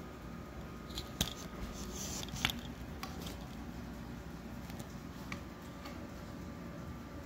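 Light handling noise: scattered small clicks and rustles, with two sharper clicks about a second in and about two and a half seconds in, over a faint steady hum.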